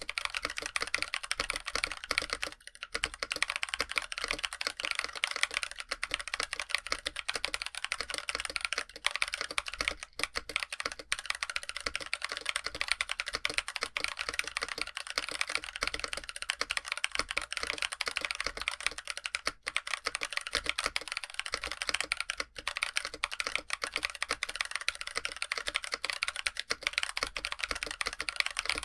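Steady fast typing on a mechanical keyboard with an aluminum case and stock Blue Velvet tactile switches (PME housings), dense keystrokes with only a few brief pauses.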